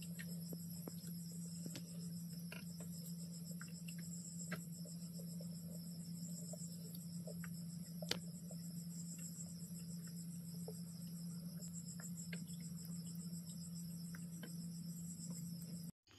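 Faint background of crickets chirping in a high, pulsing trill over a low steady hum, with occasional small clicks.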